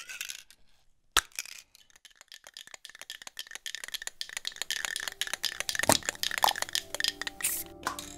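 Aerosol spray-paint can being shaken, its mixing ball rattling in quick, ever louder clicks, with a short burst of spray hiss near the end. A single sharp click comes about a second in.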